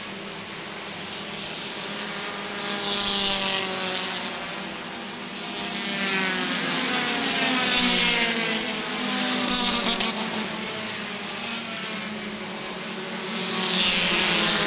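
Compact touring race cars running in a pack on a paved oval. The engine sound swells and fades three times as groups of cars go by, each pass sliding in pitch.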